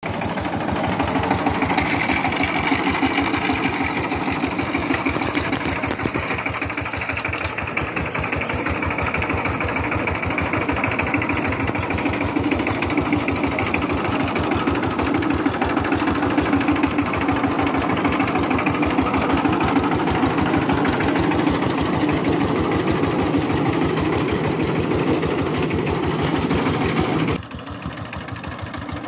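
Single-cylinder diesel engine of a two-wheel power tiller running under way, a fast, even knocking beat. About 27 seconds in it drops suddenly much quieter as the machine is heard from farther off.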